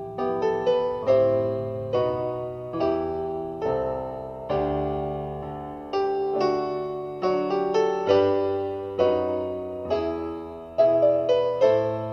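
Solo piano music: a steady run of struck notes and chords, each starting sharply and fading before the next.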